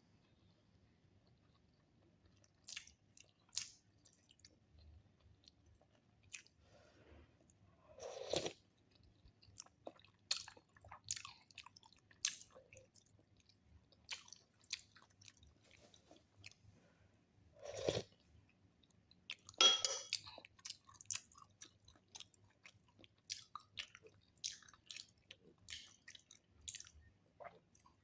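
A person chewing food, with many small crunches and mouth clicks scattered throughout, and twice a louder, deeper sound.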